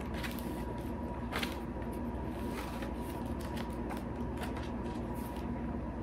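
Pages of a paper book being turned and leafed through: a run of short papery crackles and rustles over a faint steady hum.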